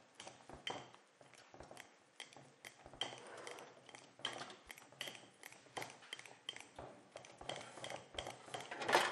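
A metal utensil mashing potatoes in a cut-glass bowl, knocking and clinking against the glass about twice a second with short ringing pings. The knocks get louder near the end.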